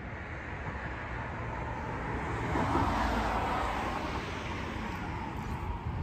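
A car passing on the road: its tyre and engine noise swells to a peak about halfway through and fades away. Steady wind rumbles on the microphone underneath.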